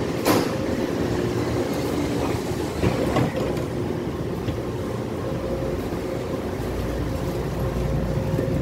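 Taipei Metro C301 steel-wheeled electric train moving along a station platform: steady rumble of wheels on rails with a faint steady motor tone, a couple of sharp knocks in the first few seconds, and a deeper low rumble coming in after about five seconds.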